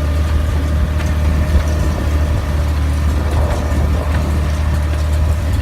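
Farm tractor engine running steadily under load, a deep even drone with a steady higher whine over it, with a few faint clicks and rattles.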